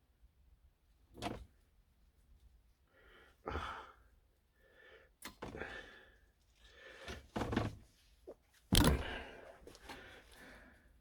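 A handful of separate knocks and handling scuffs, the loudest near the end, as cable tie tails are cut off the wrapped diesel heater exhaust pipe.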